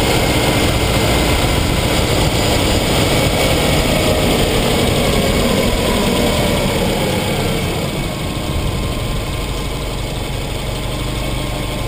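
Subaru Impreza 2.0 GT Turbo's turbocharged flat-four engine and tyre noise heard at the front bumper as the car rolls slowly, the engine note falling about halfway through as it slows and pulls up.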